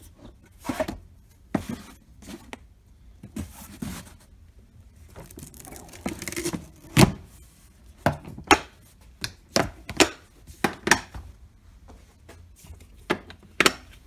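Park Tool BX-3 plastic tool case being closed: soft knocks and rustling as the fabric tool pallets fold in, a heavy thud about halfway as the lid shuts, then its latches snapped shut, about four pairs of sharp plastic clicks.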